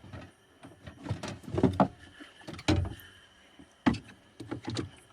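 Several separate knocks and clunks of cooking gear being handled in a camp kitchen, with a louder knock near the middle and another near the end.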